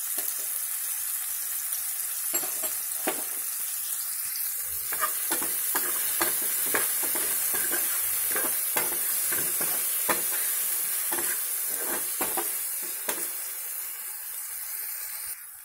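Onions, tomatoes and green chillies sizzling in hot oil in a steel pan, with a metal spoon clicking and scraping against the pan several times, irregularly, from about two seconds in. The sizzle drops off just before the end.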